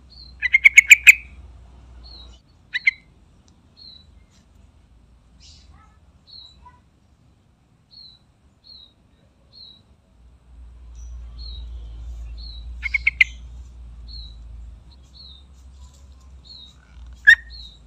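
Yellow-vented bulbul (trucukan) singing in short bursts of rapid, bubbly notes: one near the start, a brief pair about three seconds in, another burst about two thirds of the way through, and a single loud note near the end. A faint high chirp repeats about once a second throughout.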